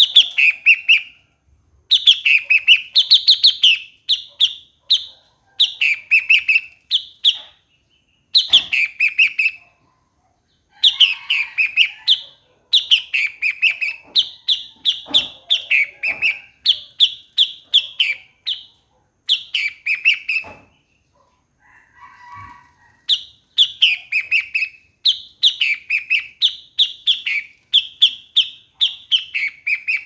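Bulbul (Thai นกปרอดหัวตาขาว) singing in a cage: repeated bubbling phrases of quick notes, each dropping from a higher note to a lower one, with short gaps between phrases and a longer pause about two-thirds of the way through.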